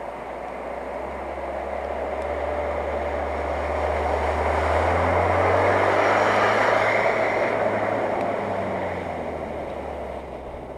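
Off-road SUV driving through shallow water past the listener: its engine hums under the rush and splash of water thrown up by the wheels. It grows louder as it comes close, loudest about six seconds in, then fades as it drives off.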